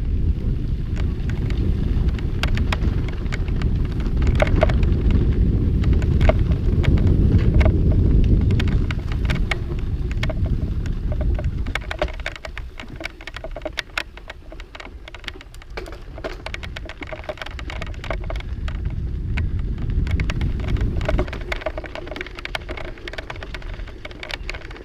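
Mountain bike riding a rough, rocky trail: a steady run of sharp clicks and crackles from the tyres and bike rattling over stones and gravel, with heavy wind rumble on the microphone that eases about halfway through and picks up again later.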